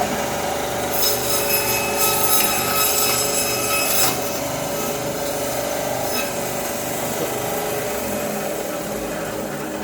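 JG-210 electric meat-and-bone band saw running steadily. Its blade cuts through a piece from about a second in to about four seconds, then runs on without load.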